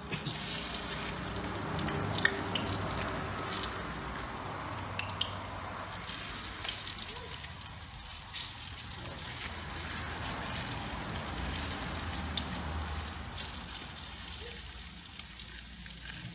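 Hot oil sizzling in a steel wok as egg-coated long bean pieces fry, with scattered small pops and crackles.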